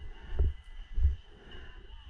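Two low, muffled thumps about half a second apart, like a player's footsteps heard through a worn camera, over faint outdoor background noise.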